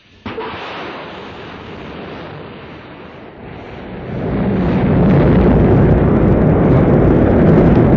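Rocket launch: a hiss starts abruptly, then about four seconds in the deep rumble of the engines igniting builds up and stays loud.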